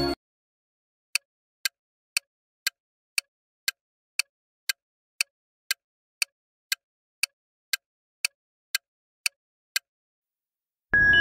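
Countdown timer sound effect: clock-like ticks, about two a second, for around nine seconds. A jingly music track cuts off at the start and comes back near the end.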